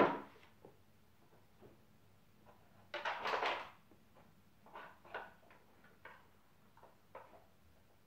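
Wooden Dog Twister puzzle pieces scraping and knocking as a dog nudges them with its nose. There is a short scrape right at the start and a longer one about three seconds in, then a run of light clicks and knocks.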